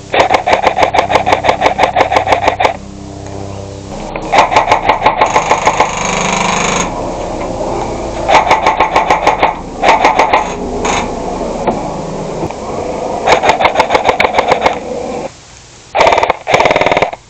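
Rapid full-auto fire from a gun at close range, about eight shots a second, in repeated bursts of one to nearly three seconds with short pauses between.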